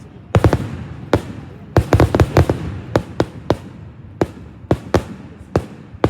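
Fireworks going off: an irregular run of sharp bangs, about twenty in all, coming fastest about two seconds in, over a low rumble.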